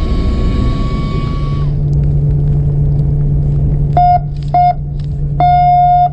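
A boat's horn sounds three times, two short blasts and one longer one: the signal that the fishing time is over. Under it the boat's engine runs with a steady low hum that sets in about a second and a half in.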